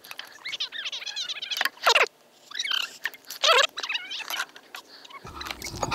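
Clicks and small knocks from fishing rods and a spinning reel being handled, mixed with several short, high, squeaky chirps that bend in pitch. The loudest chirps come about two and three and a half seconds in.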